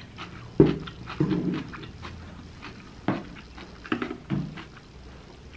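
A person eating close to the microphone: chewing and mouth noises, broken about five times by short low hums.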